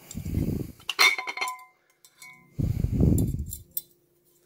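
Handling noise as a saw motor's wound field is worked out of its housing in the hands: two stretches of low rubbing and scraping, and a metallic clink with a short ring about a second in.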